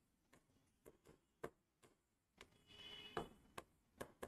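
Chalk tapping and scratching on a chalkboard as words are written: faint, irregular ticks, with a brief squeak of the chalk a little past halfway.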